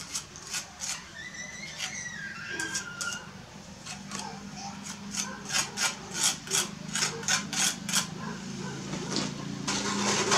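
Mason's trowel working brick and mortar: a run of short scraping or tapping strokes, two or three a second and loudest in the later part. A rougher, continuous rustle follows near the end.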